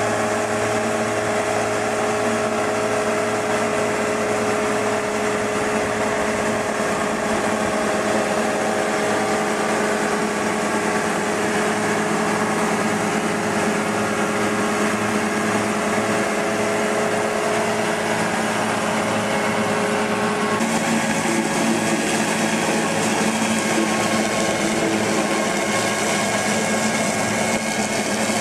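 Machinery running steadily with a high whine over a dense mechanical din; the sound changes abruptly about 20 seconds in.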